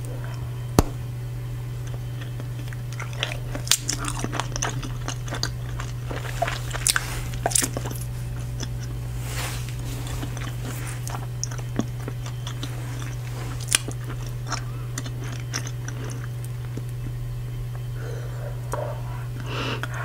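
Close-miked bubble gum chewing: wet smacks, snaps and small pops at an irregular pace, with one sharp pop about a second in as a blown bubble bursts. A steady low hum runs underneath.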